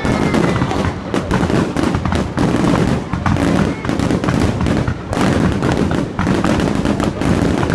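Fireworks display: a dense, continuous barrage of rapid bangs and crackles with no pause.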